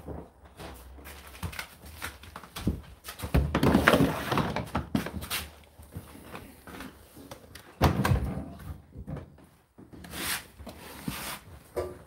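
Plastic knocks, clunks and scraping from handling a condenser tumble dryer: the water container drawer is slid back into its slot, then the dryer is opened and laundry is pulled from the drum. The noisiest handling comes about four seconds in and again at about eight seconds, with a sudden knock.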